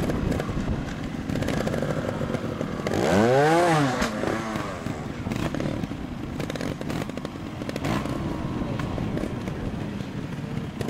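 Trials motorcycle engine running, with one throttle blip about three seconds in, its pitch rising and falling back.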